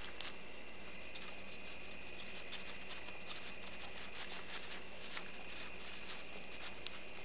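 Knife cutting into a largemouth bass behind the gill plate: a run of small, irregular crackling clicks as the blade works through flesh and bone, over a steady faint hum.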